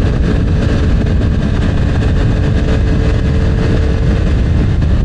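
Yamaha MT-09's three-cylinder engine droning steadily at cruising speed, under a heavy, steady rumble of wind on the microphone.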